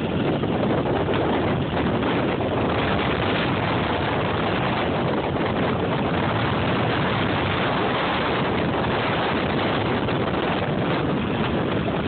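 Steady wind rushing over the camera microphone during a fast downhill ski run, mixed with the hiss of skis sliding on snow.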